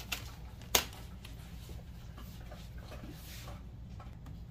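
A single sharp click about a second in, then faint rustling handling noises over a low steady hum.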